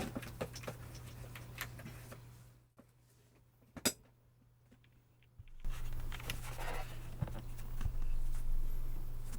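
Typing on linear-switch mechanical keyboards, a quick run of key strokes. First a 60% board with Tealios V2 switches, its strokes dying out about two and a half seconds in. After a near-quiet gap broken by a single sharp click, louder typing starts about five and a half seconds in on a Geonworks Frog TKL with Cherry cream switches (Cherry MX Black housings with Kailh Cream stems).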